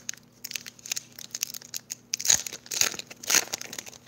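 Foil Pokémon booster pack being torn open and crinkled in the hands: an irregular string of sharp crackling rustles, loudest about two to three and a half seconds in.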